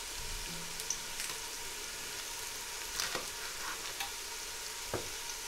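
Sliced onions frying gently in oil in a pan, a steady quiet sizzle, with a few light knife taps on a wooden chopping board as green chillies are cut.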